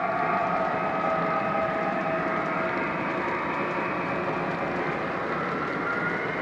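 O-gauge model freight cars rolling past on three-rail track: a steady rushing of metal wheels on the rails, with a thin whine that drifts slowly down in pitch and a second one rising near the end.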